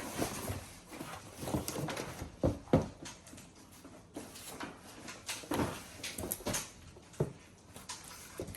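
Handling noises from unboxing a laptop: scattered knocks, clicks and rustles of the cardboard box and packaging, a cluster of louder knocks about two and a half seconds in and again around five and a half to six and a half seconds.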